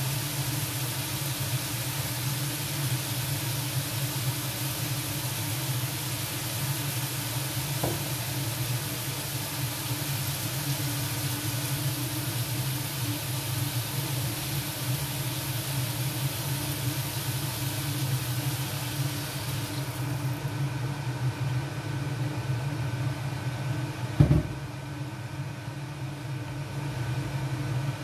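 Cubed chicken, potatoes and carrots sizzling in a nonstick skillet over a steady low hum. About two-thirds of the way through the sizzling drops away, with sauce now in the pan, and a single sharp knock follows a few seconds later.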